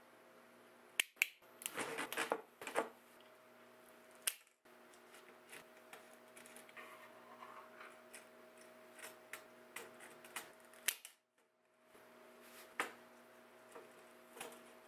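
Faint sharp clicks and snips of wire strippers working on electrical wire and small parts being handled on a screw terminal block, bunched in a quick run of clicks near the start, over a faint steady hum.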